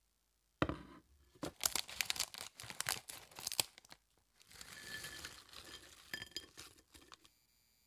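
Plastic snack bag crinkling as it is cut open with scissors, then a pile of small fried rice crackers poured out, rattling and clinking onto a plate for a few seconds.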